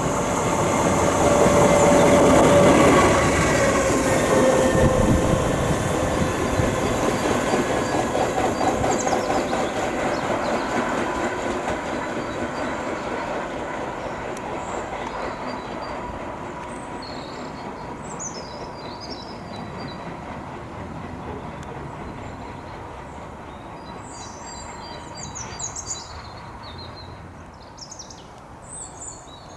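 Diesel locomotive running on the line, its engine and its wheels on the rails loudest a few seconds in and then slowly fading away. Birds chirp faintly in the second half.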